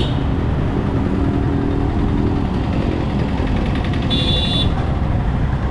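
Motorcycle riding along a road, a steady low rumble of engine and road noise, with one short horn beep about four seconds in.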